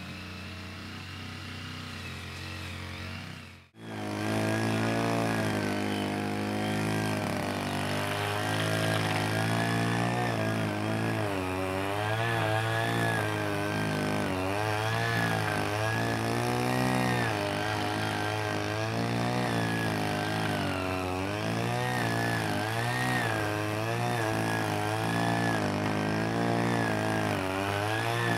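An engine running, its pitch repeatedly rising and falling, louder after a brief drop-out about four seconds in.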